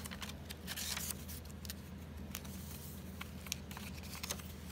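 Paper pages of a handmade journal being turned and flipped open by hand, with scattered soft crackles and rustles, most of them in the first second, over a low steady hum.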